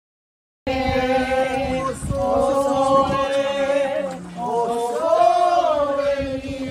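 A group of voices singing a slow song together, with long held notes that slide up and down. The singing starts about half a second in, after a moment of dead silence.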